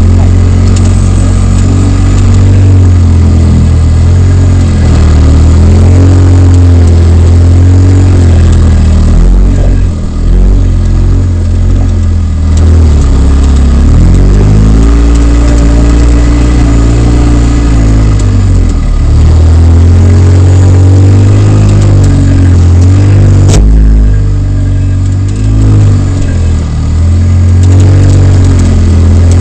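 Polaris RZR side-by-side's engine running loud in the open cab while rock crawling, its revs rising and falling in slow swells as the throttle is worked over the rocks. One sharp knock toward the end.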